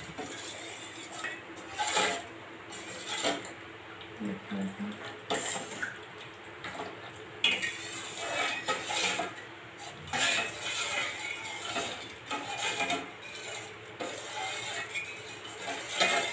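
Steel spoon scraping and clinking against a stainless-steel kadai in irregular strokes, stirring finger-millet (ragi) batter so it does not form lumps.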